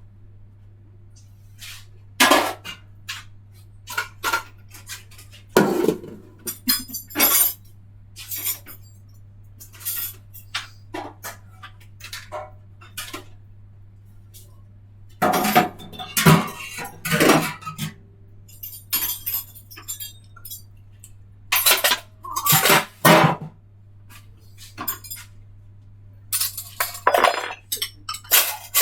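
Intermittent clinking and clattering of small hard objects, in scattered bursts with pauses between, over a steady low hum.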